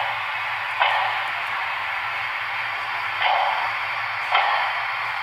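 HO-scale steam locomotive model's onboard sound playing a steady steam hiss, with three short louder chuff-like bursts at uneven spacing.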